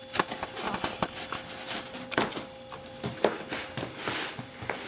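Hands handling a cardboard shipping box, fingers scratching and picking at the packing tape that seals it: irregular taps and scrapes on the cardboard, with a longer rasp about four seconds in.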